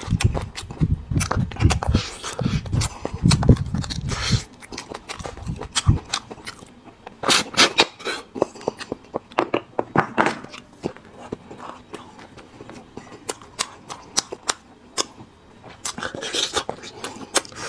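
Close-miked eating of braised marrow bones: wet sucking and slurping as marrow is drawn out of a bone section, with many sharp mouth clicks and smacks and some chewing, heavier in the first few seconds, then sparser clicks and short slurps.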